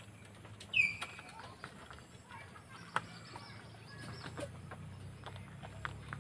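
Guinea pigs eating from a plastic plate: scattered small clicks and rustles of nibbling and shuffling feed. About a second in comes one short, high chirp that falls in pitch, the loudest sound.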